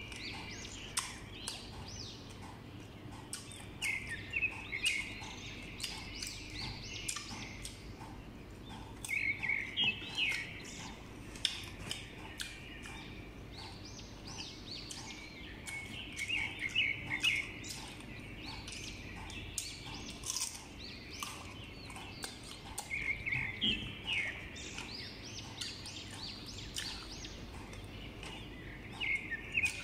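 Crisp crunching and chewing of sour Indian mango slices, many small clicks. Short bursts of bird chirping come about every six seconds and are the loudest sounds.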